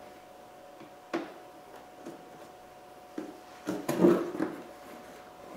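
Hollow plastic knocks and rattles from the plastic shroud of a truck's cooling fan assembly being handled and shifted: one sharp click about a second in, then a cluster of knocks about four seconds in.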